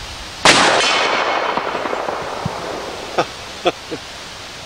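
A single loud shot from a stainless Smith & Wesson .44 Magnum revolver firing a heavy 340-grain hard-cast load, its report echoing away over about two seconds. A few short, quieter sounds follow near the end.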